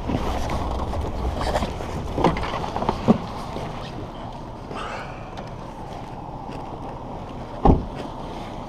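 Steady low vehicle and road rumble with wind buffeting the microphone, broken by a few sharp knocks, the loudest near the end.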